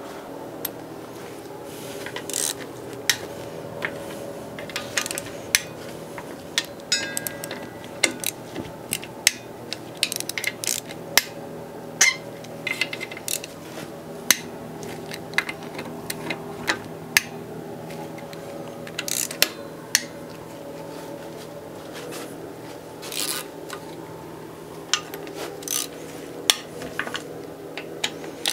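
Hand wrench working the oil pan bolts on a Honda R18 engine's aluminium block: scattered metal clicks and clinks of the tool on the bolts, with a quick run of clicks about eight seconds in, over a steady background hum.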